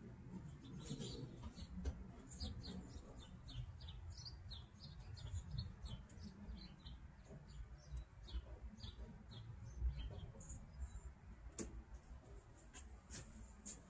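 Faint low hum of a 1955 Chevy Nomad's newly fitted electric windshield wiper motor running, with a fast run of short high squeaks, about three a second, that fades out after about eight seconds.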